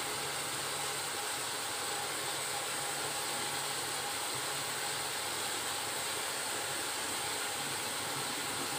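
Steady, even hiss from the stovetop as chopped brinjal, onions and tomatoes cook in an aluminium pot over a gas flame.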